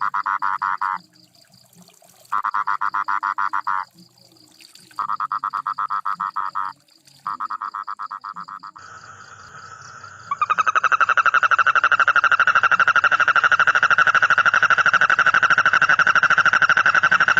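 Frog calling in fast pulsed trills: three or four bursts of about a second and a half with short gaps, then one long unbroken trill from about ten seconds in.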